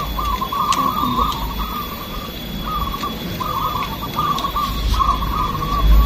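A chorus of zebra doves (perkutut) cooing, their short rolling coo phrases following and overlapping one another without a break. A low rumble runs underneath and grows loudest near the end.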